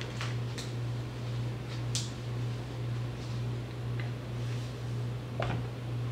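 Steady low hum of room tone with a few faint clicks and taps.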